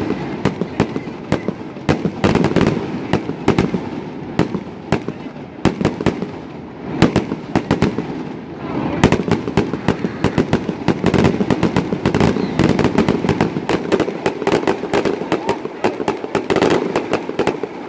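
Fireworks display: aerial shells bursting in rapid succession with dense crackling, many bangs a second, easing briefly about six and a half seconds in before building again.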